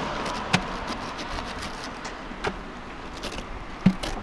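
A knife slicing the rind off a ripe pineapple, making short crisp cuts with a sharper knock near the end, over the fading hum of a passing car.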